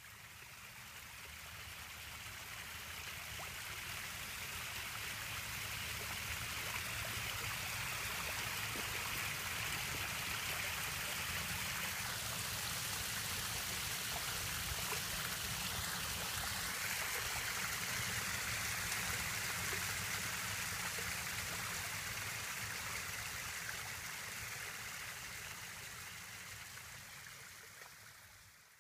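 Small garden-pond waterfall splashing steadily over rocks into the pond, fading in at the start and fading out near the end.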